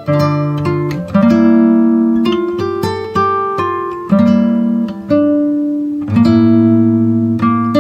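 Instrumental ringtone music of plucked and strummed acoustic guitar: a tune of picked notes and chords, each struck about once a second and left to ring out.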